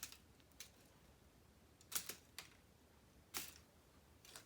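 Plastic K'NEX connectors being unclipped from rods: several sharp little clicks and snaps, the loudest about two seconds in and at about three and a half seconds.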